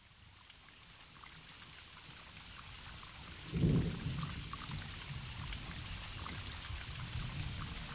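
Rain falling and slowly fading in, with a low rumble of thunder about three and a half seconds in, the loudest moment. After it, a steady rumble continues under the rain.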